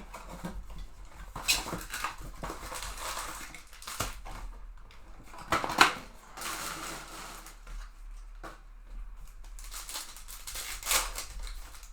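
Hands opening a foil trading-card pack and handling the cards: irregular crinkling of the wrapper, with a few sharp clicks or snaps, the loudest about six seconds in.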